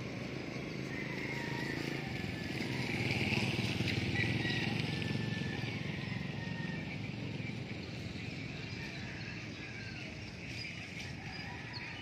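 A motor vehicle, most likely a motorcycle, passing: its noise swells over the first few seconds, peaks about four seconds in and slowly fades, over a steady outdoor background.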